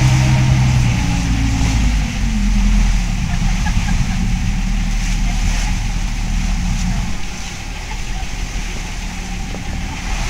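Boat engine running steadily under a hiss. Its pitch drops about a second or two in as it throttles back.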